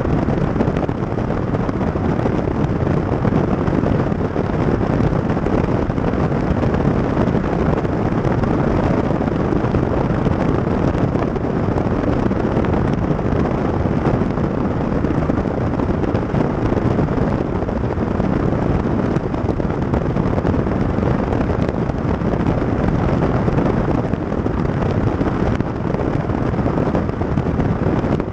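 Wind buffeting the microphone of a camera mounted on the outside of a moving car, mixed with tyre and road noise; a steady, loud, low noise with no change.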